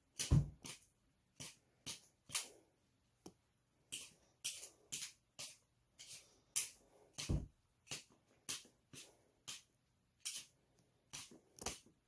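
Hand-held vegetable peeler scraping the skin off a potato in short, irregular strokes, roughly two a second. Twice a stroke comes with a soft thump.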